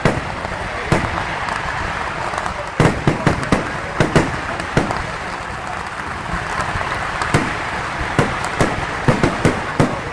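Fireworks going off in a rapid, irregular string of sharp bangs, bunched in two quick clusters, about three seconds in and again near the end, over a steady background din.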